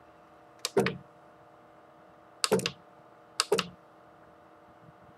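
Computer keyboard keys pressed three times, each a quick cluster of sharp clicks, stepping the CNC mill axis one increment at a time in Mach3. A faint steady hum runs underneath.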